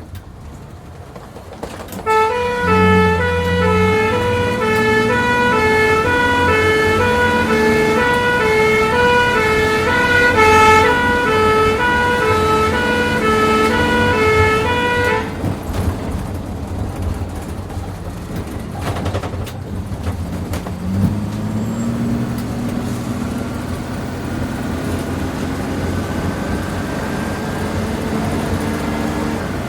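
Two-tone ambulance siren alternating high and low, heard from inside the ambulance over its engine and road noise. The siren starts about two seconds in and cuts off about halfway through. The engine keeps running, rising in pitch as the vehicle accelerates shortly after the siren starts and again about two-thirds of the way in.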